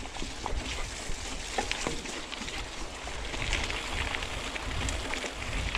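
Mountain bike rolling over a dirt singletrack: tyres on soil and gravel with many small clicks and rattles from the bike, over a steady low rumble of wind buffeting the handlebar-mounted camera's microphone.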